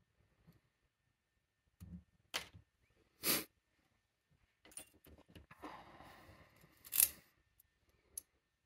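Small metal parts of a brass ASSA Guideline lock cylinder clicking and scraping as it is handled and taken apart. A few sharp clicks, then a couple of seconds of metal sliding and rattling, ending in the loudest snap about seven seconds in, and one last click near the end.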